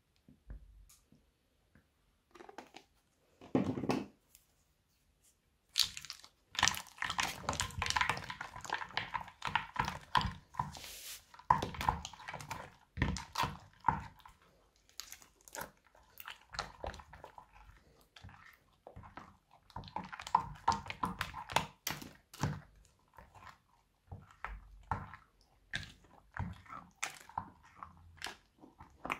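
A spatula stirring crunchy slime full of beads in a glass dish: dense, irregular crackling and squelching that starts about six seconds in and goes on with a few short pauses.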